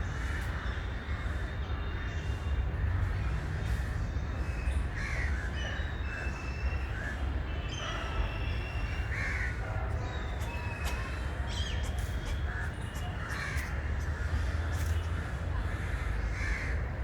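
Crows cawing every few seconds, with short whistled calls of other birds, over a steady low background rumble.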